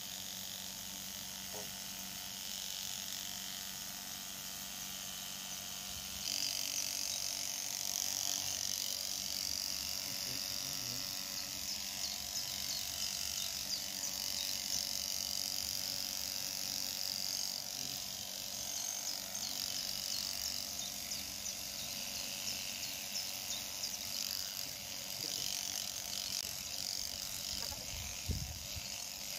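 Electric sheep-shearing handpiece running steadily, its cutter buzzing through a Shetland sheep's fleece; it gets louder about six seconds in.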